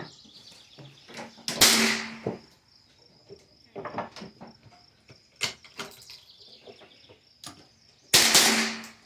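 Two rifle shots about six and a half seconds apart, each sudden and dying away over most of a second, with smaller clicks between them and a steady high insect chirping underneath.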